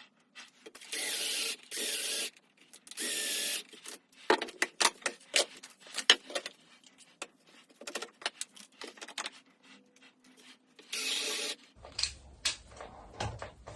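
Three short bursts of a power drill, each under a second, followed by a run of clicks and knocks from workpieces and tools being handled on the bench, and one more short drill burst near the end.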